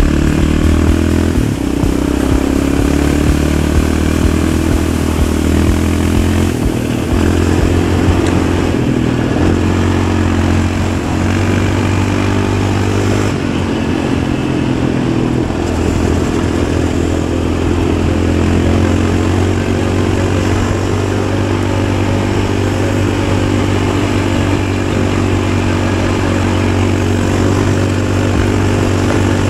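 Yamaha Raptor 700 ATV's single-cylinder four-stroke engine running while riding, its note stepping up and down a few times as the engine speed changes.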